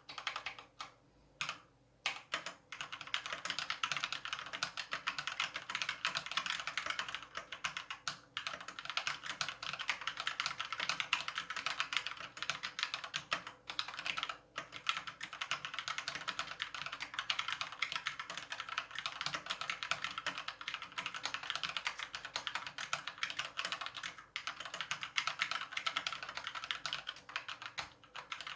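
Fast continuous typing on a COX CK87 mechanical keyboard with Gateron Yellow linear switches, a dense stream of key clacks with a few short pauses. The case is fitted with sound-dampening foam, so there is no hollow case ring.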